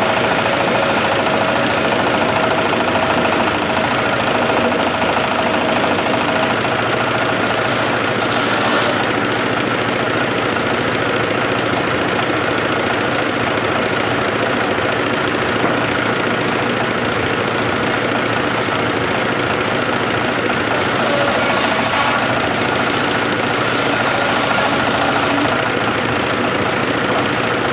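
Engine-driven sawmill machinery running steadily, with a constant mechanical hum.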